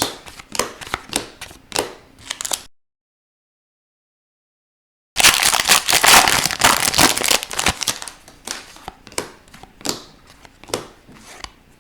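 Trading cards being handled: sharp clicks and slides of card stock, with a dense stretch of crinkling as of a foil pack wrapper just after the middle. The sound drops out completely for about two and a half seconds before the crinkling starts.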